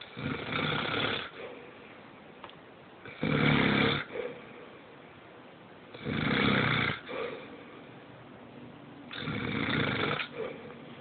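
A man snoring in his sleep: four loud snores, each about a second long, coming about every three seconds, with quieter stretches in between.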